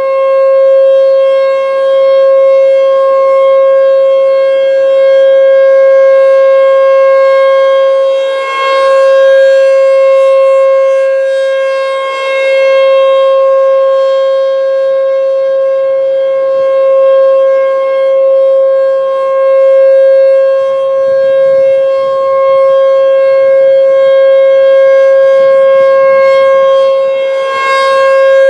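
American Signal T-128 rotating outdoor warning siren sounding a loud steady single tone at full volume during a siren test. Its loudness swells and fades every few seconds as the rotating horn sweeps past.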